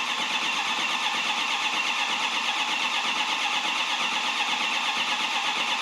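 2005 Ford F250's 6.0-litre Power Stroke V8 diesel cranking over on the starter with a steady, rhythmic beat and never catching: a crank-no-start fault.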